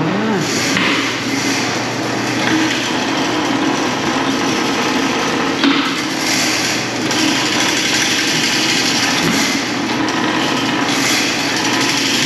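Loud, continuous mechanical noise of working machinery, with a steady low hum underneath.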